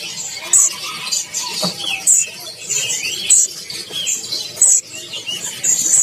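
Many small caged songbirds chirping and calling together: short, very high chirps repeating irregularly over quicker rising-and-falling notes. There is one soft knock a little under two seconds in.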